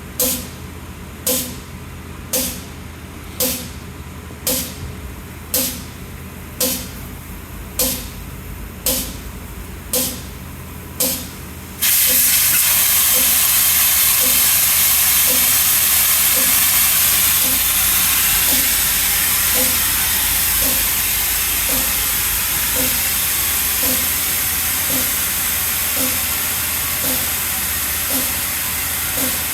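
Compressed air hissing in short puffs about once a second, then about twelve seconds in a loud continuous hiss of air starts and runs on. A faint regular blip keeps time about once a second underneath.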